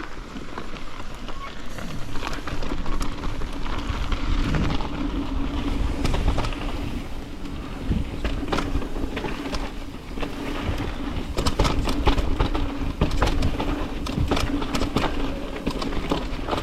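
Mountain bike riding down a dirt trail: tyres rumbling and the bike rattling with many sharp clicks over rough ground, wind on the microphone, and a steady buzz underneath.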